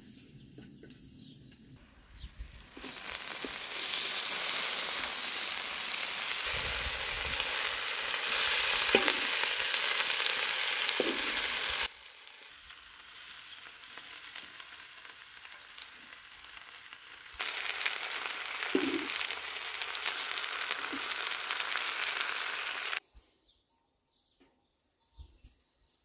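Spinach frying and sizzling in a wok as it is stirred with a wooden spatula. The sizzle comes in two stretches, about 3 s in and again about 17 s in, each starting and cutting off abruptly, with a quieter spell between.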